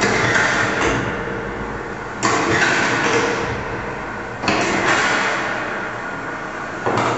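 Experimental sound-art piece: a dense noisy texture that swells up suddenly about every two seconds and slowly fades each time, over a low steady hum.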